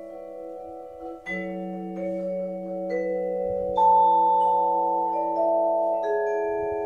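Percussion quartet playing tuned mallet percussion: a slow, quiet melody of long ringing notes, a new note struck about once a second over a held low note. The loudest note comes about four seconds in.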